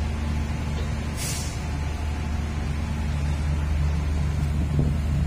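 Steady low mechanical drone of heavy machinery running, with a brief hiss about a second in.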